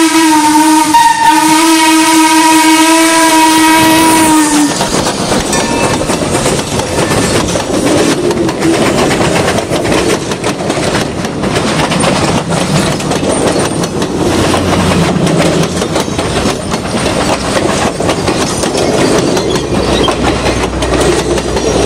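Ex-Tremont & Gulf #30 steam locomotive's hooter whistle sounding a long single-note blast with a brief break about a second in, cutting off about four and a half seconds in. Then the train's passenger coaches roll past close by, wheels clicking over the rail joints.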